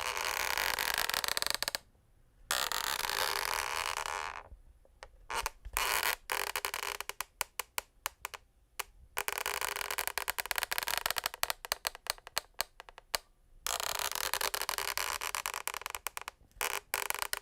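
Scraping and rubbing on a wooden parquet floor: long noisy strokes separated by short pauses, with a stretch of rapid crackling about a third of the way in before the steady scraping returns.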